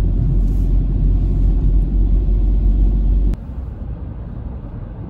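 Car cabin noise while driving: a steady low rumble of tyres and engine. About three seconds in it drops suddenly to a quieter rumble.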